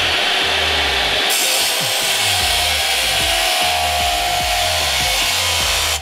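Hitachi C10FCE2 10-inch compound miter saw cutting through perforated steel strap, a loud, steady grinding of the blade in the metal that cuts off suddenly at the end.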